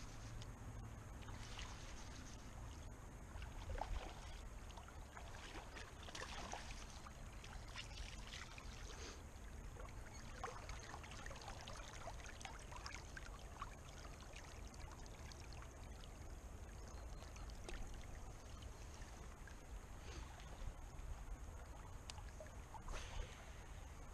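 River water splashing and trickling around the angler's hands as a hooked fish is handled at the surface, over the steady flow of the river. The splashes come mostly in the first half.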